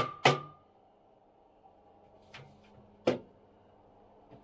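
Hammer blows with a ringing note: the last two of a quick series at the start, then a pause with a couple of faint clicks, then one more blow about three seconds in.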